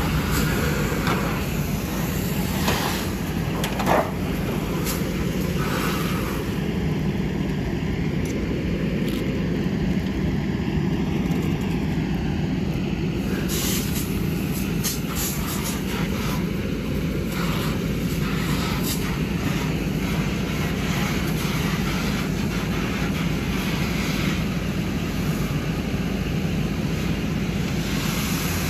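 Steady low drone of a fire engine's engine and pump running, with intermittent hiss and spatter of a hose stream hitting the burning car.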